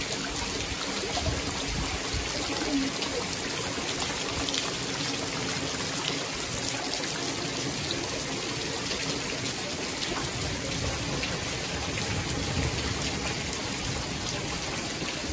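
Heavy rain falling steadily on trees and foliage: an even hiss with scattered tiny drop ticks.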